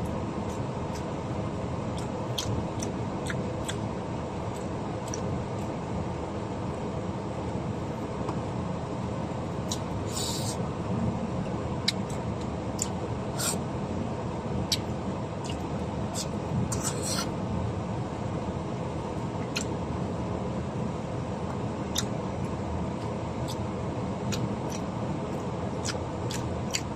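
Steady low rumble of a minivan's cabin, with scattered small clicks throughout and two short rustles, about ten and seventeen seconds in.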